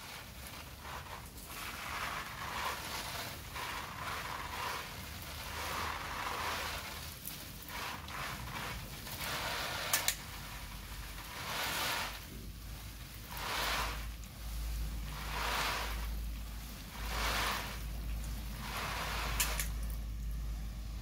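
Water spray hissing and pattering onto a potted plant's leaves and soil, swelling and fading every second or two. A low rumble joins about two-thirds of the way in, with a couple of sharp clicks.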